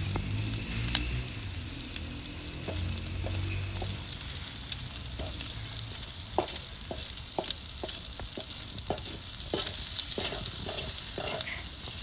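Eggs sizzling in a hot black steel pan over a wood fire. From about halfway, a wooden spatula scrapes and taps against the pan as they are stirred, about two strokes a second.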